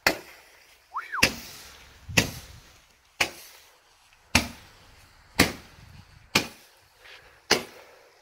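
An 8-shot Roman candle firing its eight shots, one sharp pop about every second. A short whistle rises and falls just before the second shot.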